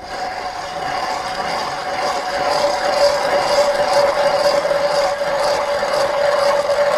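An ice auger boring a hole through the ice nearby: a loud, steady mechanical running sound with a constant drone, starting abruptly.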